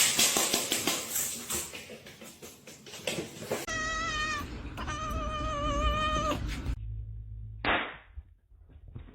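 A cat yowling: two long drawn-out calls with a wavering pitch, starting about four seconds in. A rough noise comes before them and a short noisy burst after them.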